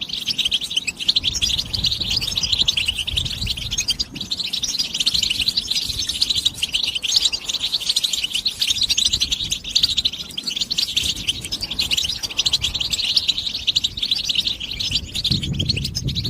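European goldfinch singing a long, unbroken run of rapid, high twittering chirps.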